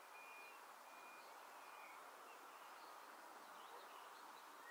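Near silence: faint outdoor background hiss with a few faint short high-pitched chirps, mostly in the first two seconds.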